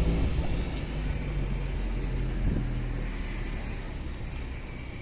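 Pickup truck engine running with road noise, heard from the open cargo bed, growing gradually quieter as the truck eases off.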